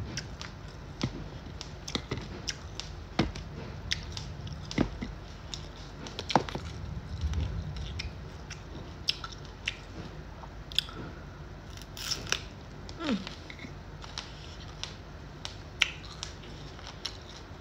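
Close-miked biting and chewing of crisp raw vegetables, bell pepper among them: sharp crunches at irregular intervals with wet chewing between, and a short falling squeak about 13 seconds in.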